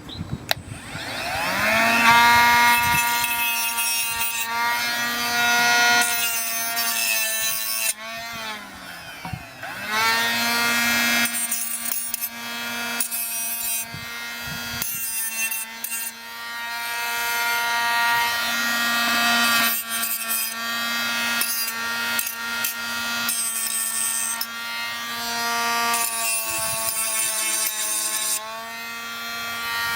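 Parkside PWSA12 B1 12-volt cordless angle grinder spinning up and running with a steady whine, its disc scraping against a workpiece. About nine seconds in it winds down briefly and then spins back up.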